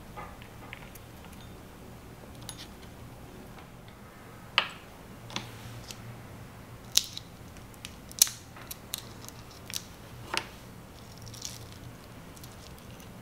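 Small plastic packaging being handled: a tiny clear-wrapped foam meat tray is uncovered and tipped out. It gives a string of short, sharp clicks and crinkles, about eight of them, from about four and a half to ten and a half seconds in.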